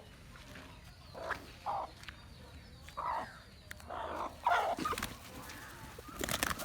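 A chicken clucking in a handful of short calls spread out over several seconds, with a few sharp clicks near the end.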